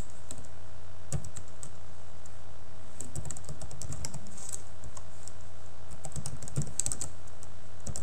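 Typing on a computer keyboard: scattered keystrokes with a couple of quick flurries, over a steady low hum.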